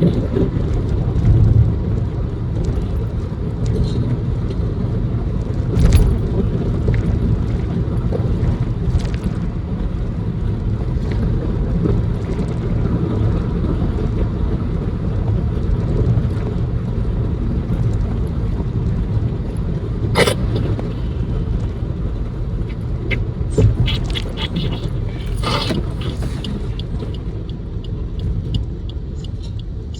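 A car driving, its steady low road and engine rumble heard from inside the cabin, with a few short sharp knocks or clicks: one about 6 seconds in, one about two-thirds through, and a small cluster a little later.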